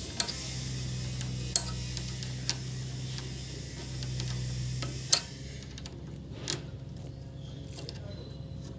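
Small metal clicks and taps of a spanner working the needle clamp screw of an overlock sewing machine as the new needle is tightened in, a handful of scattered clicks, the loudest about five seconds in. A low steady hum underneath stops about five seconds in.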